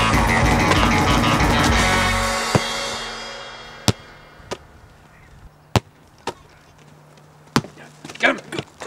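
Rock music with electric guitar and drums, ending about two and a half seconds in and trailing off. It is followed by a handful of sharp, separate knocks spread over the next five seconds, with faint voices near the end.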